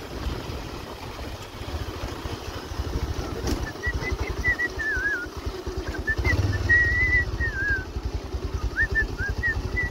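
Motorcycle engine running with a fast, even low pulse under wind noise on the microphone. From about four seconds in, a wavering high whistle comes and goes over it in short broken phrases.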